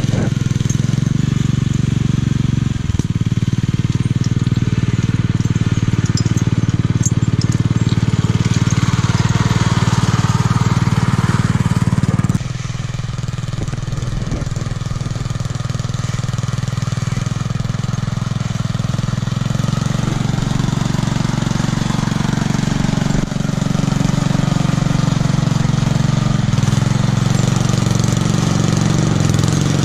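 Homemade garden tractor's engine, fitted with a homemade muffler, running steadily as the tractor pushes snow with its front plow blade. The sound drops suddenly to a lower level about twelve seconds in, with the tractor farther off.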